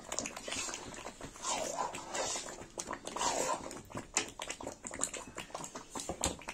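Metal ladle scraping and knocking against a steel kadhai as a thick mustard masala is stirred while it fries. Two short whines that dip and rise in pitch come through, about a second and a half in and again after about three seconds.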